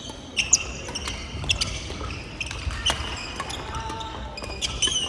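Badminton rackets striking the shuttlecock several times and sports shoes squeaking on a wooden gym floor, with rallies running on several courts at once.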